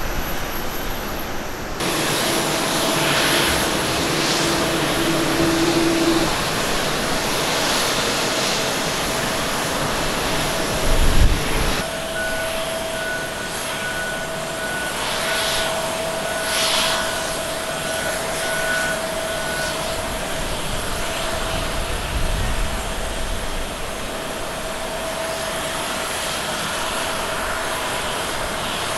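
Jet airliners' turbofan engines running at low power while taxiing: a steady whine with a held mid-pitched tone. The sound changes abruptly about 2 s and again about 12 s in, with a brief low rumble just before the second change. From the second change on it is an Airbus A350 taxiing.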